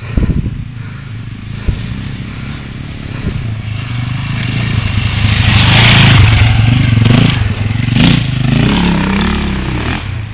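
KTM dirt bike engine revving and growing louder as the bike comes up the dirt track and past, loudest about six seconds in, with a couple of sharp knocks around seven and eight seconds in, then dropping away.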